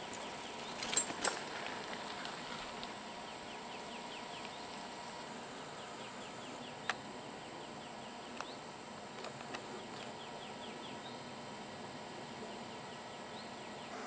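Faint outdoor field ambience: a steady hiss with runs of quick, faint high chirping notes in the background. A few sharp ticks stand out, two close together about a second in and single ones later.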